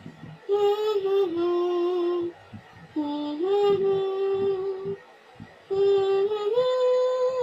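A high voice singing three long held phrases, each about two seconds, with a short break between them. Each phrase sustains a note and steps up or down once or twice.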